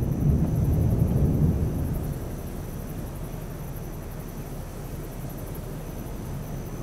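Low rumble of distant thunder, loudest in the first two seconds and then dying away into a steady low outdoor rumble.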